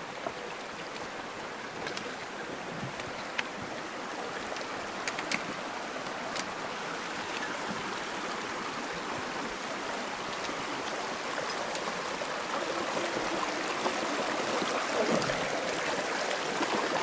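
Shallow mountain stream rushing over rocks, a steady wash of water growing a little louder in the last few seconds, with a few light knocks of boots and trekking poles on the stones.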